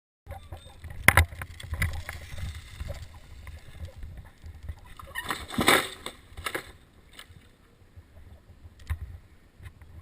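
A wooden hammer striking felling wedges twice, sharply. About five seconds in, a rushing crash builds as the date palm goes over, then dies away with a few smaller knocks.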